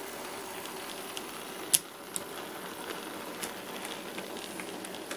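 Model train running past: the small locomotive's motor and gearing give a steady whirr and hiss, and the wheels click irregularly over rail joints, with one sharper click about two seconds in.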